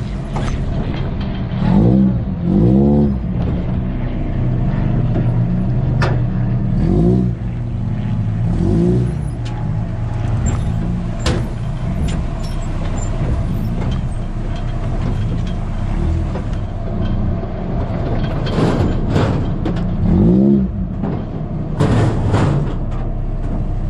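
Off-road buggy engine running, its pitch swelling up and back down in short bursts of throttle every few seconds, with occasional sharp knocks and rattles from the vehicle on the rough track.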